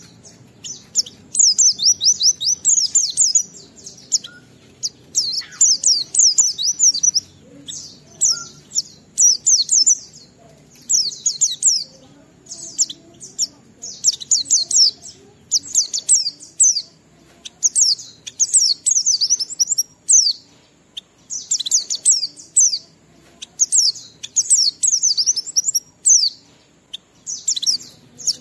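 White-eye (pleci) singing in the fast, twittering 'ngalas' style: high-pitched phrases of a second or two of rapid notes, repeated with short pauses. This is the full song that keepers play to prompt other white-eyes to sing.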